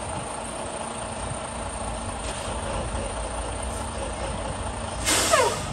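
Semi-truck diesel engine running steadily at low speed as the tractor rolls slowly across the yard, a low rumble. About five seconds in, a short loud hiss with a falling whistle cuts through.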